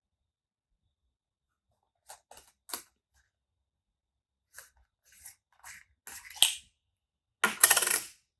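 Olympus OM-1N 35mm SLR and its lens being handled: scattered small mechanical clicks, a sharp click about six seconds in, then a rapid run of clicks near the end.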